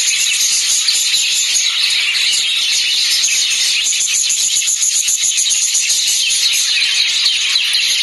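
Continuous high-pitched chattering and chirping of many lovebirds in an aviary, a dense steady din with quick fine clicks in it.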